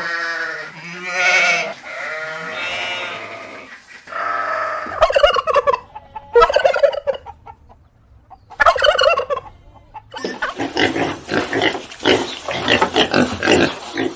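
Farm poultry calling loudly: a series of separate calls, then a rapid rattling run of short calls over the last four seconds, like a turkey's gobble.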